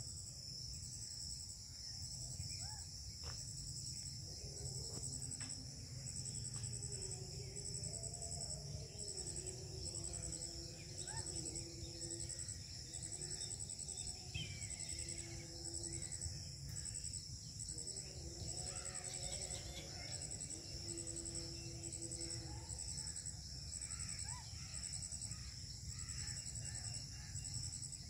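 Outdoor ambience: a high insect buzz in regular pulses, with bird chirps and crow caws now and then, faint distant voices, and a low steady rumble of wind or handling noise on the microphone.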